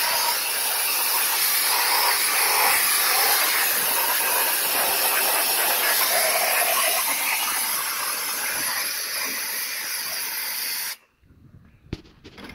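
Air-powered spray gun hissing steadily as it sprays diesel over a cylinder head to clean it. The spray cuts off abruptly about eleven seconds in, leaving a few light clicks and knocks.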